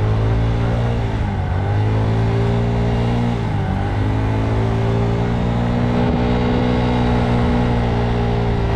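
Scooter engine running under way, a steady motor drone whose pitch dips briefly twice, about a second and a half in and again after three and a half seconds, then picks up again.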